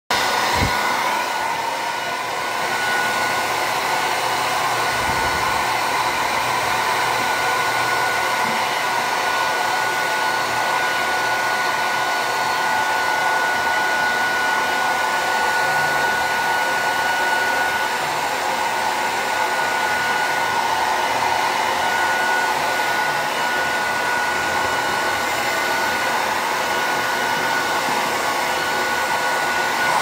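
Hair dryer running continuously: an even rush of blown air with a steady high whine from the motor running through it.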